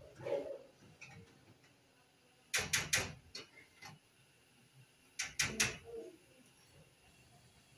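Kitchen clatter: two quick runs of sharp knocks, about four each, some two and a half seconds apart.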